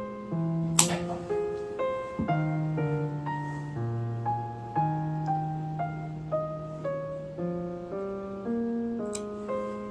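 Gentle background piano music playing a slow melody, with two sharp clicks over it, one about a second in and one near the end.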